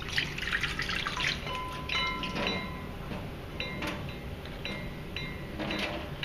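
Water pouring from a plastic fish bag and splashing into a stainless steel kitchen sink, heaviest in the first second or so, then in shorter splashes as the bag is tipped and handled.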